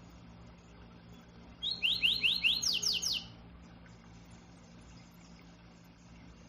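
A songbird sings one short phrase: a quick run of about eight sharp slurred whistled notes lasting about a second and a half, starting just under two seconds in. A faint steady hum lies underneath.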